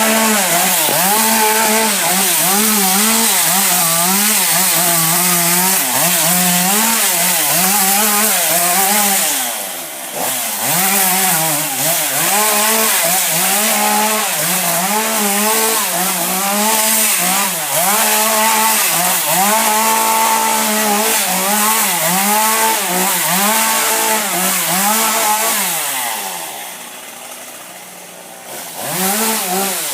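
Chainsaw running at high revs and cutting, its pitch dipping and recovering over and over. It eases off briefly about ten seconds in, drops to a quieter lower-revving stretch near the end, then revs up again.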